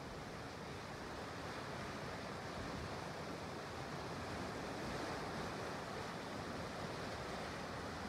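Steady rushing, churning noise of Mud Cauldron, a steaming hot acidic mud pool, its surface churning and giving off steam.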